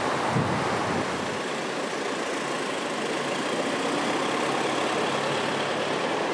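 Steady rushing noise of a muddy, flood-swollen mountain river, with a low rumble underneath in the first second or so.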